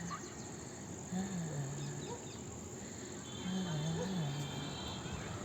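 Insects trilling steadily in a garden, with a low wavering hum that comes and goes every second or two.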